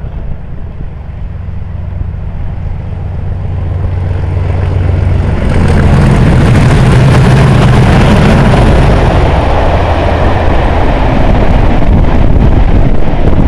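Class 37 diesel-electric locomotive's English Electric V12 engine growing louder as the train approaches, its steady low note stepping up in pitch as it passes close by. The level stays high as the coaches follow, with sharp clicks of wheels on the rails near the end.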